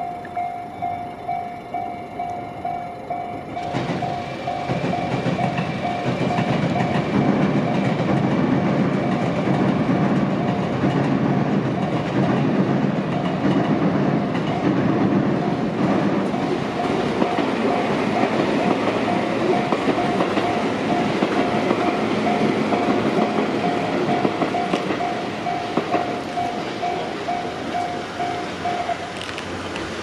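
Japanese level-crossing warning bell ringing over and over, about two strokes a second. From a few seconds in, a train passes over the crossing with a loud rumble and clatter that fades near the end. The bell then stops.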